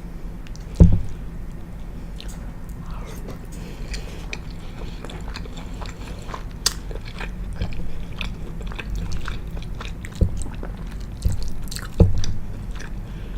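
Close-miked chewing and mouth sounds of someone eating penne pasta, with many small wet clicks. Two loud low thumps, about a second in and near the end, stand out above the chewing.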